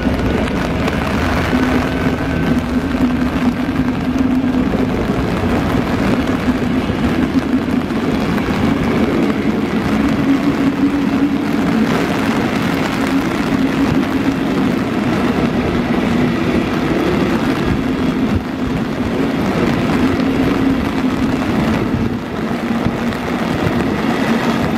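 M62 and TE109 diesel locomotives hauling a passenger train away under power, their engines droning steadily while the coaches rumble past on the rails.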